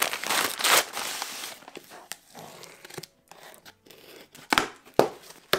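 A padded kraft-paper mailer being torn open by hand: loud paper tearing and crinkling for the first second and a half, then quieter rustling with a few sharp crackles near the end as the contents are pulled out.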